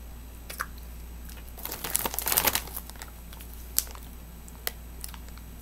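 Plastic cotton candy bag crinkling as it is handled, mostly in one burst of about a second roughly two seconds in, with a few single sharp clicks before and after.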